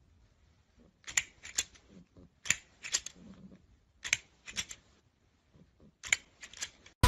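Plastic crocodile-head grabber toy clacking as its scissor arm is worked and its jaws snap. Sharp clicks come in pairs and threes, about one group every second or so.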